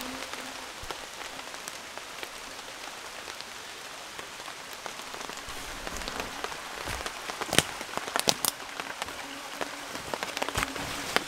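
Steady rain falling on surfaces, with scattered sharper taps and knocks in the second half.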